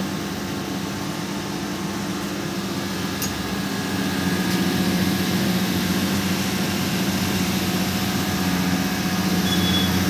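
Window-AC reciprocating compressor and fan motor running together in a homemade dehumidifier: a steady electrical-mechanical hum with a low tone, getting a little louder about four seconds in.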